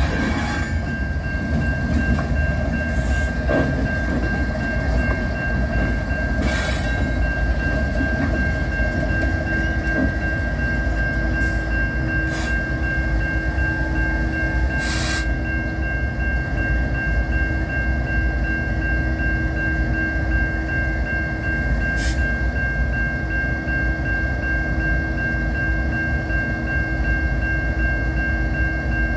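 CN diesel locomotives rumbling at low speed or idle at a road crossing, under the steady ringing tone of the crossing's warning bell. A few brief hisses, the plainest about fifteen seconds in.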